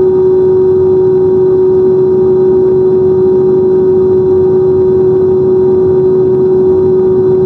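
Loud, steady drone holding one pitch, with fainter higher tones and a rumbling hiss beneath, unchanging throughout.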